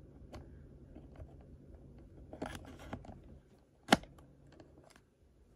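Quiet handling noises: scattered light clicks and rustles, with one sharp click or knock about four seconds in.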